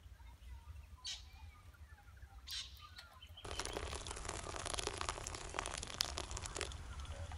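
Birds chirping. About three and a half seconds in, a steady splashing hiss starts: hot water pouring from a kettle onto coffee grounds in a pour-over dripper, with the sharp crackle of a small wood fire burning in a camp stove.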